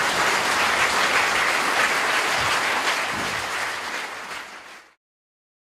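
Audience applauding at the end of a play: a dense, steady wash of clapping that fades over the last couple of seconds and stops abruptly about five seconds in.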